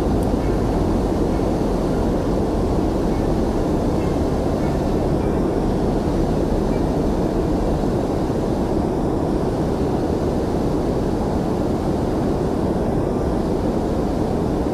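Steady low rumble of wind buffeting the microphone and choppy water around a small fishing boat, with no distinct events.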